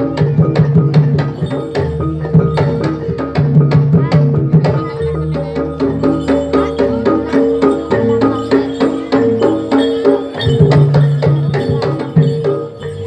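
Javanese jaranan music played live: drums and tuned percussion in a rapid, steady rhythm over sustained ringing tones.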